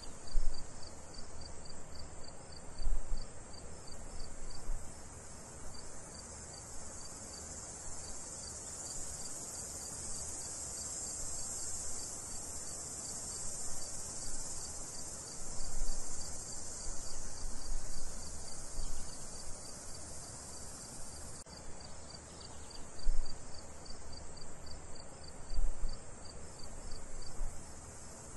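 A steady high chorus of crickets and other insects with a fast, even pulsing trill, broken by a few short low thumps.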